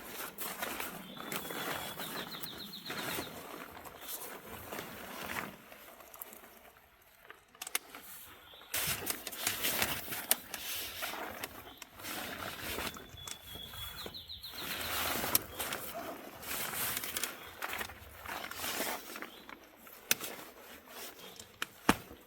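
Irregular rustling with scattered light clicks and knocks. A bird sings twice, about a second in and again about 13 seconds in, each time a short held note followed by a fast trill.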